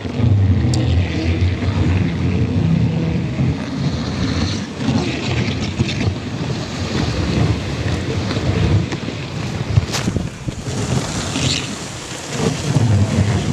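Dog sled sliding over packed snow: the runners rumble and hiss steadily while wind buffets the microphone, with a sharp knock about ten seconds in.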